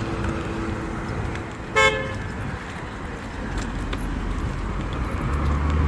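A car horn gives one short toot about two seconds in, over the steady noise of passing traffic.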